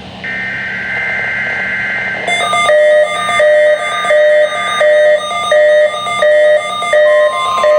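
NOAA Weather Radio Required Weekly Test tones received over the radio. For about two seconds the buzzy two-tone SAME digital data header plays. Then a loud alert tone takes over, switching back and forth between two pitches about one and a half times a second.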